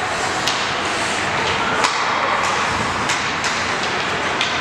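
Ice hockey game sound: a steady wash of arena noise broken by about six sharp clacks of sticks and puck on the ice, spread across a few seconds.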